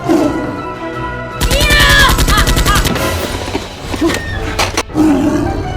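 Background music with a rapid burst of automatic-gunfire sound effects starting about a second and a half in and lasting about a second and a half, high gliding tones riding over it; two more sharp shots come near the end.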